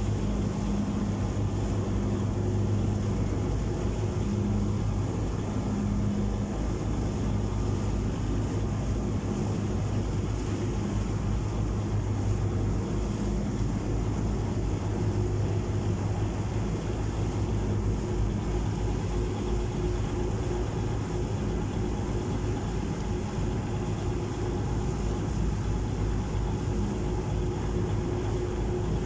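A ferry's engine running with a steady low drone, over the rush of water churned up in its wake.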